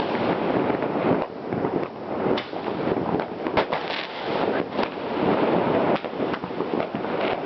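Fireworks going off continuously: a dense, irregular barrage of bangs and crackles.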